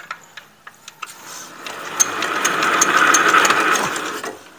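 Kubota ER75 single-cylinder diesel being turned over with its hand crank: a rhythmic clatter of about three or four beats a second builds up, then dies away near the end without the engine catching. The engine has long stood unused.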